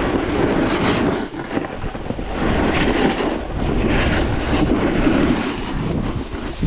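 Snowboard sliding and scraping over packed snow, with wind rushing over the microphone: a loud rumbling hiss that swells and dips every second or two.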